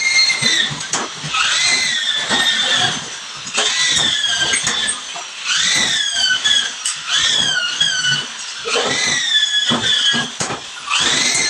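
Corded power drill driving screws through fiber cement board into metal studs: a run of short bursts of high motor whine about a second apart, each rising in pitch and then sagging as the screw is driven home.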